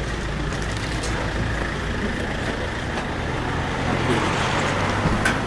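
A motor vehicle's engine running steadily, a low hum, with street noise around it.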